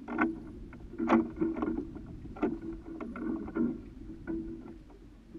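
Water slapping and knocking against the hull of a small boat at rest, in irregular splashes with short ringing knocks about a second apart.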